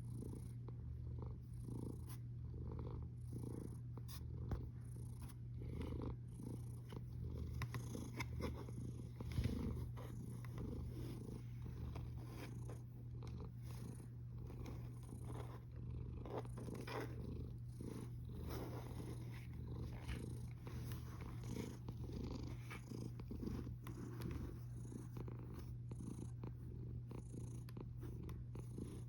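Sleeping cat snoring, a low steady rumble that swells and eases with each breath, with a couple of brief soft bumps.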